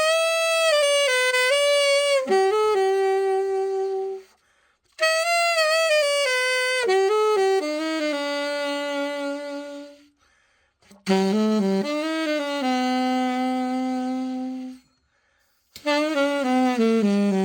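Yamaha YAS-62 alto saxophone played solo in short melodic phrases, each settling on a held note. Three brief silences of about a second fall between the phrases.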